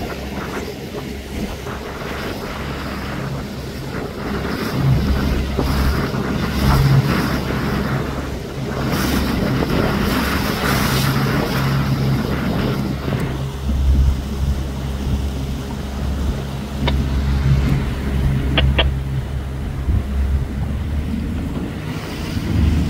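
A motorboat's outboard engine running steadily, with wind buffeting the microphone. A few sharp clicks sound near the end.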